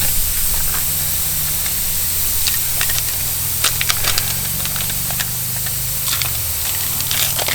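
Air hissing steadily out of a punctured car tire through a freshly reamed hole, with a few faint clicks and a low steady hum underneath.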